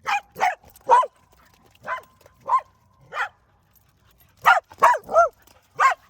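A dog barking in play: about ten short, sharp barks, irregularly spaced, with a quick run of three a little past halfway.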